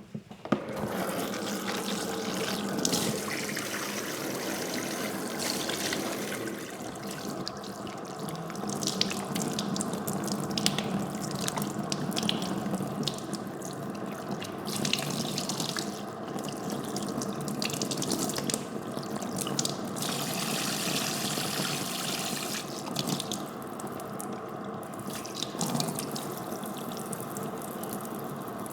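Water running from a tap and splashing into a basin. It starts suddenly just after the opening and runs on steadily, the splashing shifting in pitch and strength as the stream is moved or interrupted.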